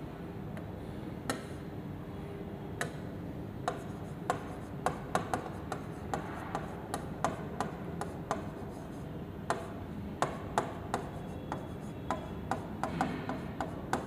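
Pen tapping and clicking on the glass face of an interactive touchscreen board during handwriting: irregular sharp ticks, some in quick runs, over a steady low hum.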